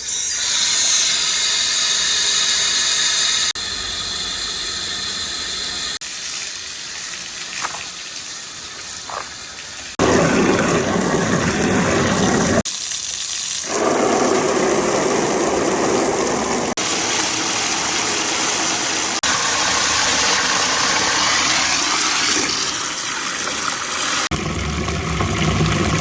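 Marbles rolling along marble-run rails: a steady rushing rumble that changes abruptly in level and tone several times.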